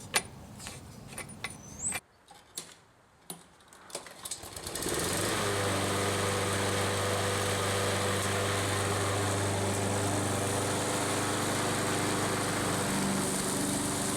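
A few light clicks, then about five seconds in the Husqvarna HU 775L walk-behind lawn mower's engine starts and runs steadily, its pitch shifting slightly near the end. This is the test run on a newly fitted spark plug.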